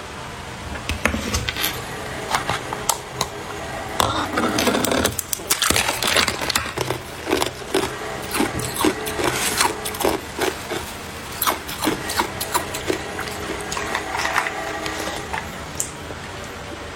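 Ice being bitten and chewed close to the microphone: sharp cracking bites, then quick repeated crunching through the middle, several crunches a second.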